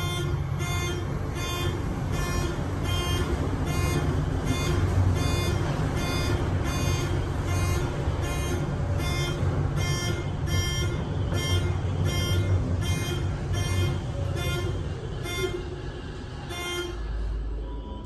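Building fire alarm horns sounding in an even pulse, about one and a half beats a second, heard from inside a moving high-speed traction elevator cab over the low rumble of the ride. The horns stop about a second before the end.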